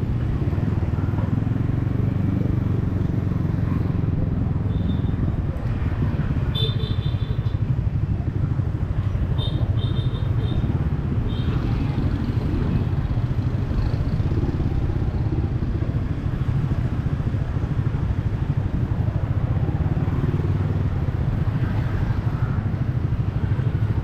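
Yamaha XSR155's single-cylinder engine with a home-made exhaust running steadily under way in traffic, heard from the rider's helmet. Two spells of short high beeps come in, about seven and ten seconds in.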